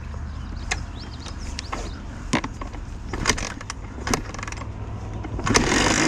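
Honda CR125 two-stroke dirt bike engine idling low under scattered sharp clicks and knocks, then revving up sharply near the end.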